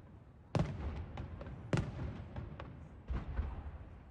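Aerial fireworks shells bursting: a boom about half a second in, another at about a second and a half, and a weaker one about three seconds in, each dying away in a long echoing tail with small crackles between.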